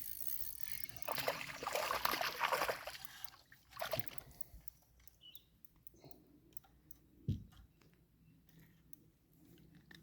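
Water splashing for about two seconds, starting a second or so in, followed by two knocks.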